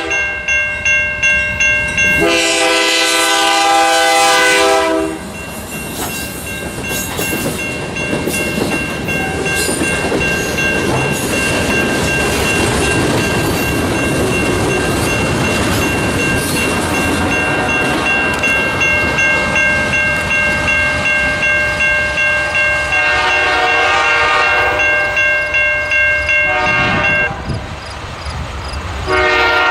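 Short freight train passing a grade crossing. The crossing bell dings steadily about twice a second throughout. The locomotive's multi-chime air horn blows a long blast a couple of seconds in and again near the end. Between the blasts, the wheels clatter over the rails.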